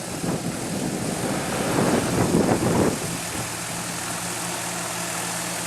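Off-road truck engine idling steadily, with a louder, rougher stretch of noise from the start until about three seconds in.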